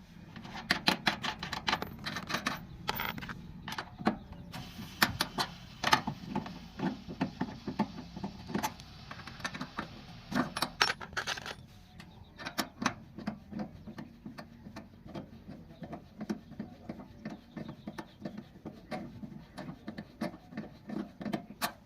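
Irregular metallic clicking and clinking of small hand tools on metal fittings, several sharp taps a second at times, with pauses between runs.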